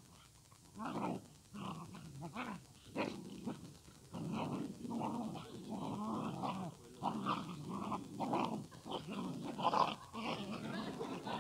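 Dogs growling in short, irregular bouts as they wrestle in play.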